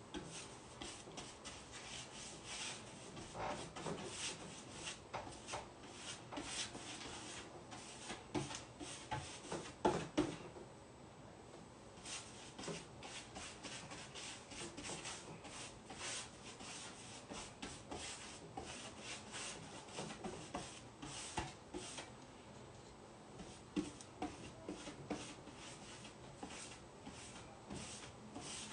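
Repeated irregular rubbing strokes of a brush spreading 3D matte gel over a chalk-painted wooden tabletop for decoupage, with a sharper knock about ten seconds in.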